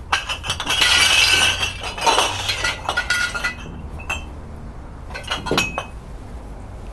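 Glass liquor bottles clinking and knocking together inside a shopping bag as it is set down on the floor: a dense run of clinks with ringing glass tones for the first three seconds or so, then a single clink about four seconds in and a last short cluster of clinks near the end.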